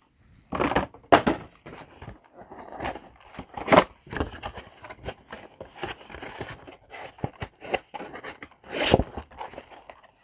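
A sealed cardboard booster display box being opened by hand: irregular rustling, scraping and tearing of its wrap and cardboard, with sharper knocks about a second in, near four seconds and near nine seconds.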